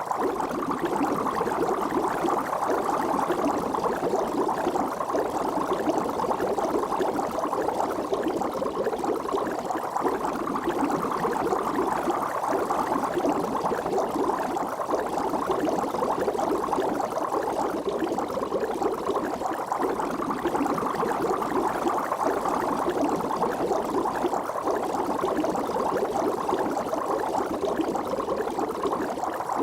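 Water bubbling steadily, a dense, even churn of many bubbles with no pauses.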